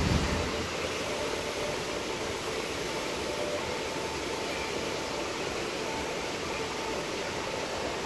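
Steady rushing noise of an artificial waterfall spilling into a pool, with a brief low rumble on the microphone right at the start.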